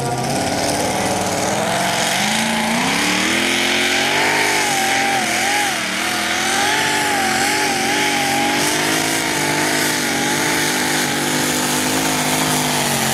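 Supercharged engine of a hot-rod pulling tractor at full throttle, hauling a weight-transfer sled. The revs climb about two seconds in, then waver up and down as it pulls.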